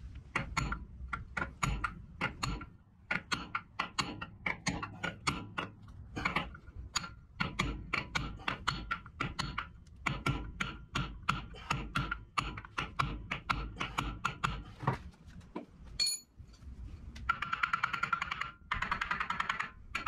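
Hammer tapping on metal in quick, irregular strikes, each with a short metallic ring, typical of tapping freeze plugs into a Ford N-series engine block. Near the end comes a fast run of lighter taps.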